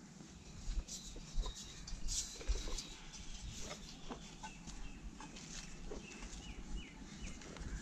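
Knocks and scuffs of a climber's hands and feet on a coconut palm trunk as he climbs. About halfway through, a bird gives a short run of repeated chirps.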